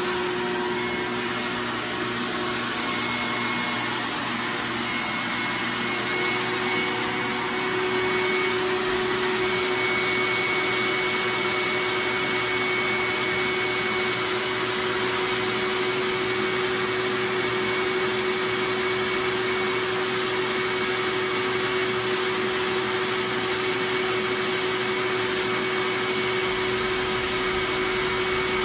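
A small electric motor running steadily, a constant whirring hum with a faint steady whine, growing slightly louder about eight seconds in.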